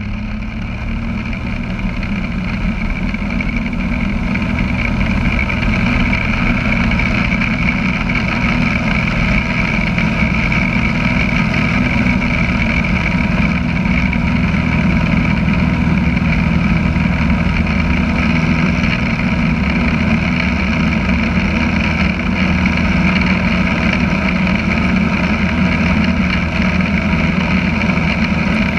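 Small single-engine propeller plane's engine and propeller heard inside the cabin, a steady drone that gets louder over the first several seconds as power comes up, then holds level.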